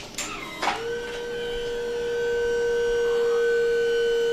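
Electric hydraulic pump whining with one steady tone as it drives the power-loader gripper's hydraulic cylinder to clamp. The whine starts with a click about half a second in and grows slightly louder.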